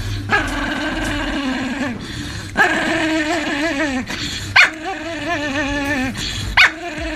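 A dog vocalising: four drawn-out calls with a wavering, warbling pitch, each starting abruptly.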